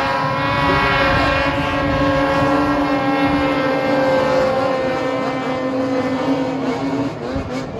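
Racing snowmobiles skimming across open water at full throttle, their engines a loud, steady, high-pitched howl that fades a little about seven seconds in.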